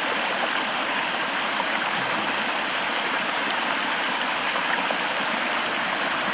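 A stream flowing, an even rush of water that holds steady throughout.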